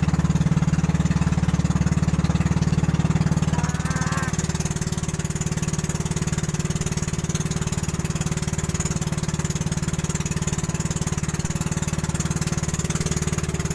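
Boat engine running steadily, a loud low even drone that eases slightly about four seconds in.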